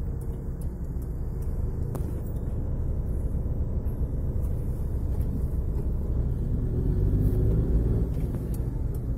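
Steady low rumble of road and engine noise heard from inside a moving car's cabin, a little louder about seven to eight seconds in.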